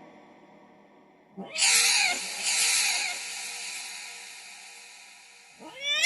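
Domestic cat meowing with heavy added reverb: one meow about a second and a half in that dies away in a long echo, and the next meow starting near the end.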